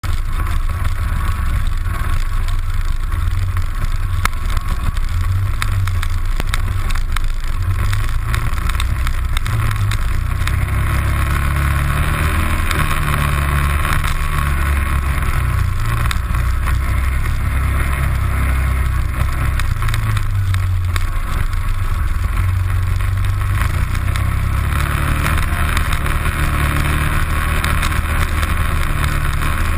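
ATV engine running while riding a rough gravel forest track, its low rumble rising and falling with the throttle, under a steady rushing noise from the ride, picked up by a camera mounted on the rear of the quad.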